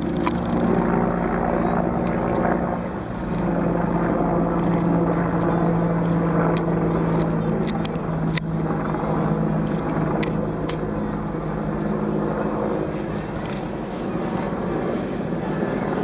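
A steady engine drone with a low, even hum, and a few short sharp ticks over it.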